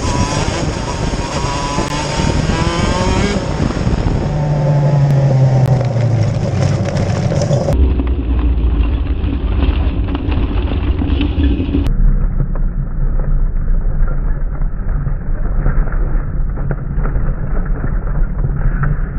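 Onboard sound of a KZ2 shifter kart's 125cc two-stroke TM K9C engine, revving up with rising pitch in the first few seconds and then running at steadier, lower revs. The kart is off the track, driving across grass. From about eight seconds in the sound turns duller and lower, leaving mainly the engine's low note and a rumble.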